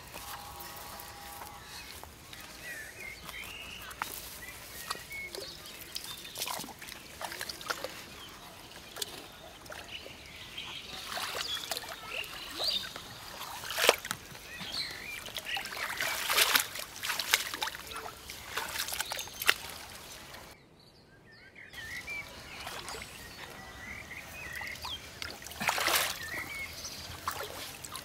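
Hands sloshing and splashing in shallow muddy water, with scattered rustling and clicks, in irregular bouts that are loudest past the middle and near the end. Birds chirp now and then.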